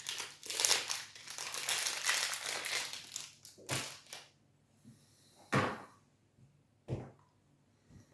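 Plastic protein-bar wrapper crinkling and crumpling in the hands for about three and a half seconds, then three short separate knocks or rustles spaced over the next few seconds.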